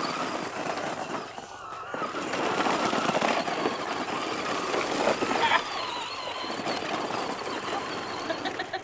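Radio-controlled truck spinning donuts on loose gravel: the tyres spray and crunch the stones while its motor whines up and down.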